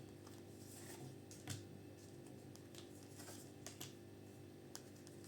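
Near silence: room tone with a few faint, light clicks.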